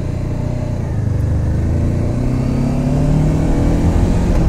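Motorcycle engine accelerating away, its pitch rising steadily and getting louder as it pulls through the gear.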